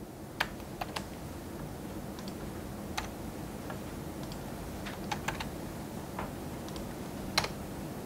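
Sparse typing on a computer keyboard: about a dozen separate keystrokes, unevenly spaced, the loudest near the end, over a low steady hum.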